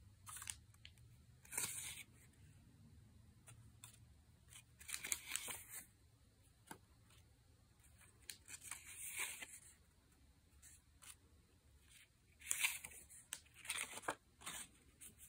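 Small die-cut paper scrapbook cards handled and flipped through, rustling and flicking in short, irregular bursts.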